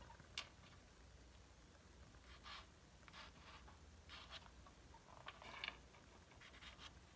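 Faint scratching of a pastel stick drawn across paper in short strokes, about one every second, with a sharp tick near the start.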